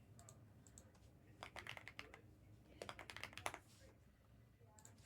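Computer keyboard typing in two short runs of keystrokes, one about a second and a half in and another around three seconds in, with a few faint clicks before them.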